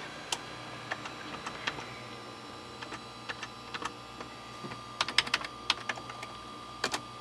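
Computer keyboard keys pressed in irregular clicks, with a quick run of presses about five seconds in, over a steady faint electrical hum.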